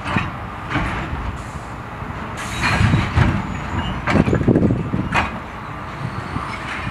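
John Deere 245G LC excavator's diesel engine running, with rusty scrap iron clattering and clanking as the lifting magnet works the pile. There are heavy bouts of metal clatter about two and a half seconds in and again past four seconds, and a single sharp clank just after five seconds.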